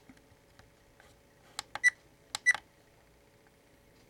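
Camcorder menu buttons pressed, each with a small click and a short electronic beep: four quick presses in two close pairs about halfway through.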